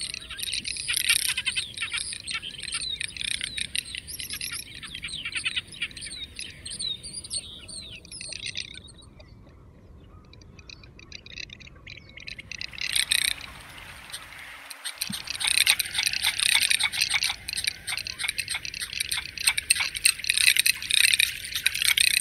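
Garganey drake calling with its dry, rapid rattle in long runs of quick clicks. The calling breaks off for a few seconds near the middle, then resumes.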